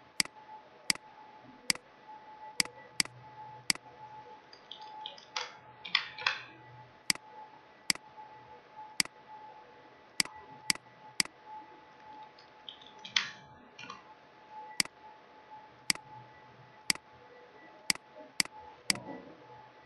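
Sharp single clicks of a computer mouse and keyboard, about twenty of them at uneven intervals, over a faint steady whine. A few brief, softer noises come between the clicks.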